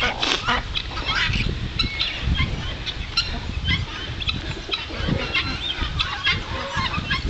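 Mixed farmyard poultry calling: many short, overlapping calls from birds in the pens, scattered throughout.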